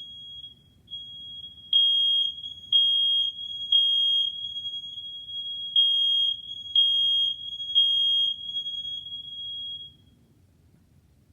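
Smoke alarm sounding after its test button is pressed: a high, piercing tone. Loud beeps come in two groups of three with a pause between, over a fainter continuous tone of the same pitch, and all of it cuts off about ten seconds in.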